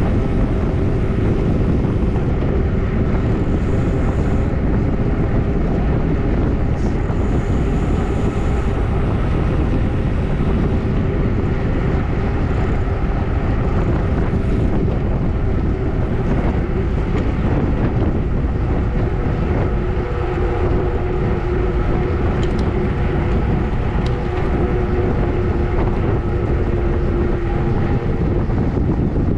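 Steady wind rushing over the microphone of a bike-mounted action camera on a road bike descending at speed, with a faint steady hum underneath.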